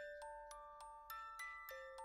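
Background music: a light tune of struck, bell-like mallet notes, about three a second, each ringing on briefly.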